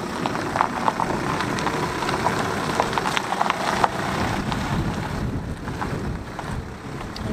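Sandstorm wind buffeting the microphone: a steady rushing with many sharp crackles, thickest in the first few seconds. Under it a VW T5 camper van drives past on the tarmac road.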